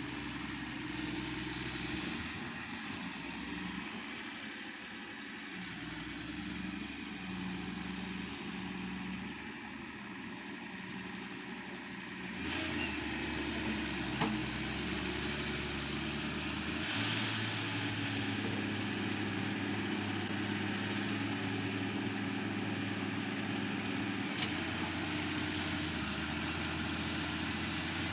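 Forage harvester's engine and chopper running under load, heard from inside the cab: a steady machine drone whose pitch shifts several times, with a thin high whine gliding up and down above it. It gets louder about halfway through.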